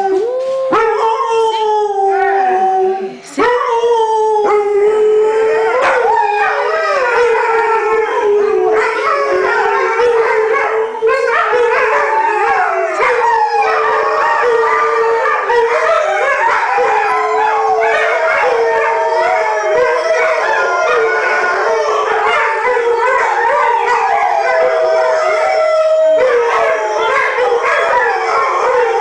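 A pack of Alaskan malamutes and huskies howling together in a 'woo-woo' singing chorus. One steady howl runs throughout, and from about six seconds in several more voices join with overlapping, wavering howls that slide up and down.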